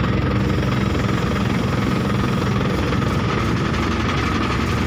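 Diesel engine of a mobile crane running steadily close by, with a steady high whine over the engine note.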